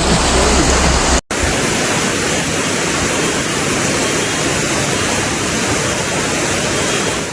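Loud, steady rushing-water noise from floodwater or torrential rain. A cut about a second in breaks it briefly, and after the cut the low rumble underneath drops away.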